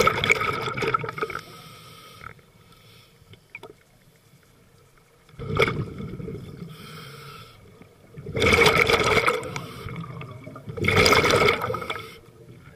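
Bubbles from a scuba regulator's exhaust as the diver breathes out underwater. They come in four loud bursts a few seconds apart, with a fainter regulator hiss between breaths.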